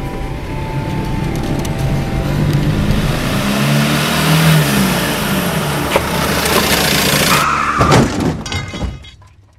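A car speeding up, its engine and the rush of the road growing louder, then a brief screech and a heavy thump about eight seconds in, after which the sound dies away.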